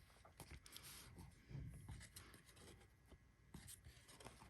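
Faint rustling and light ticks of trading cards being handled and slid from one to the next.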